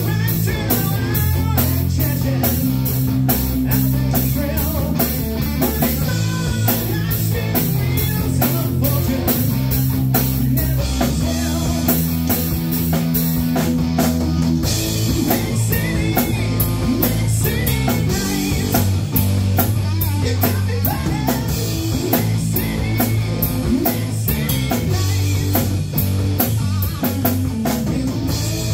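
Live rock band playing at full volume. An overdriven electric guitar runs through a Blackstar amp over electric bass and a steady beat on a Tama drum kit, with sung vocals on top.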